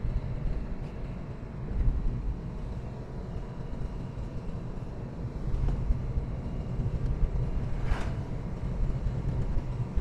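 Car engine and tyre rumble inside the cabin while driving up a mountain road. A brief sharp knock sounds about eight seconds in.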